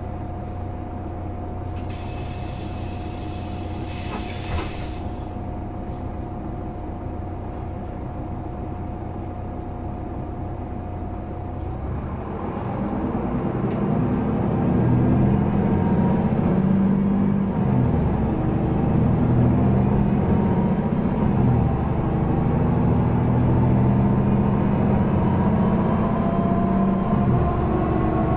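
Solaris Urbino 18 articulated bus with a Voith automatic gearbox idling with a steady hum, with a burst of compressed-air hiss about two seconds in. About twelve seconds in it pulls away: the engine runs up under load with rising whines, and there is a short dip in the engine note near the end.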